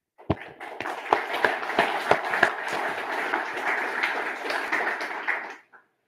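Audience applauding, a dense patter of clapping with a few louder single claps near the start, cutting off abruptly about five and a half seconds in.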